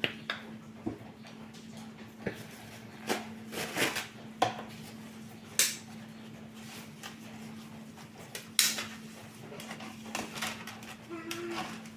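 Kitchen utensils and dishes clinking and knocking now and then, about seven sharp knocks in all, over a faint steady hum. A short squeak comes near the end.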